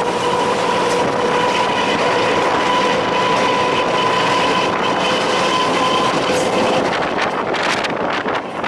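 Class M4 diesel locomotive running at speed, heard from its cab window: a steady rush of running noise with a steady high whine that fades out about six to seven seconds in. Gusts of wind hit the microphone near the end.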